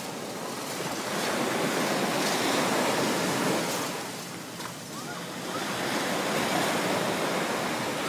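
Small sea waves breaking and washing up the sand: a steady surf wash that swells, eases off about halfway through, and builds again.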